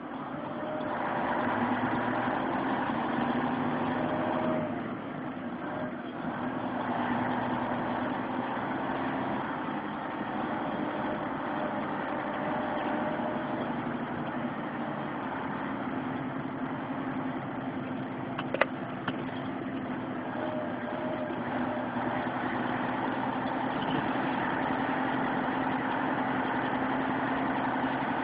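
Vehicle engine running steadily with road noise, heard from inside the cab while driving. A single sharp click comes about two-thirds of the way through.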